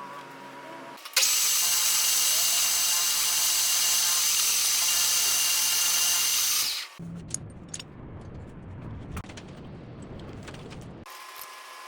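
Metal lathe cutting: a loud, steady, high hiss with ringing tones that starts suddenly about a second in and stops about seven seconds in, followed by quieter machine running with scattered clicks.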